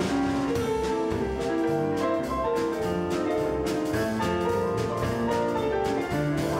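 Lively instrumental music from a small live band: quick piano notes over drums and bass.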